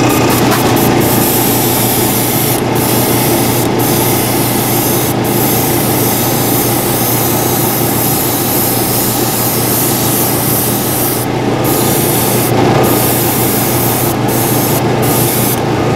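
Spray booth exhaust fan running steadily with a low hum, and an airbrush hissing as it sprays primer. The high hiss breaks off briefly several times.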